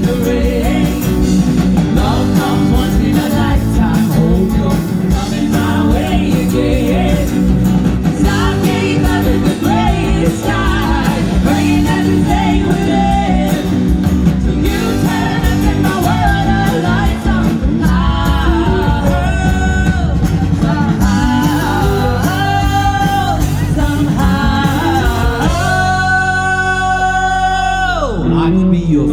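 Live rock band playing a song, with a sliding lead melody over guitar, bass and drums. It ends on a long held note that falls away near the end.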